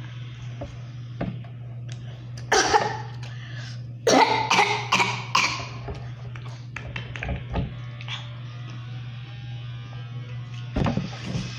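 A girl coughing hard as she chokes on a french fry: one cough about two and a half seconds in, then a run of four coughs a second later, and more near the end. A steady low hum runs underneath.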